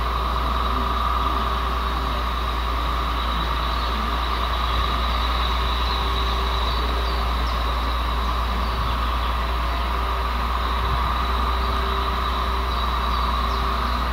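Diesel freight locomotive's engine running steadily under power as it slowly hauls a train: a constant low drone with a steady whine over it.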